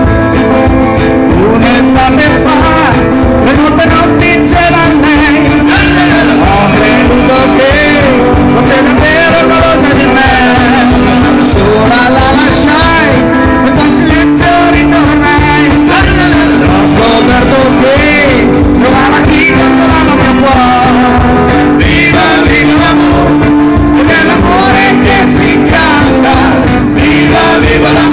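Live acoustic band: acoustic guitars strummed over a cajon beat with cymbals, and a man singing a song.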